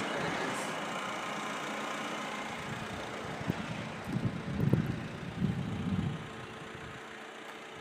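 Mercedes-Benz C220 CDI four-cylinder turbodiesel idling steadily. A few low bumps on the microphone come between about four and six seconds in.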